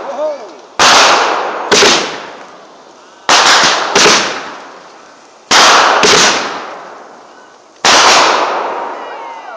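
Consumer aerial fireworks going off in a rapid sequence: about seven loud bangs, mostly in pairs less than a second apart and a new pair every two seconds or so, each trailing off over a second or two.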